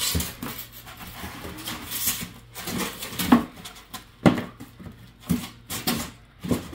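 Irregular knocks, clicks and scrapes of flat-pack bookshelf boards and packaging being shifted and checked by hand.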